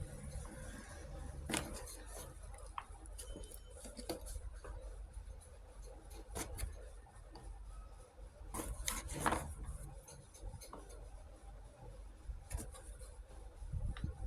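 Miniature plastic toy kitchen pieces being handled: scattered light clicks and taps, with a busier stretch of handling and knocks about nine seconds in.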